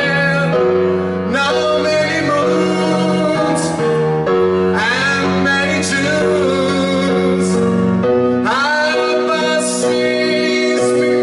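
A man singing a slow ballad into a microphone over sustained instrumental backing, in long held notes that slide up into each new phrase.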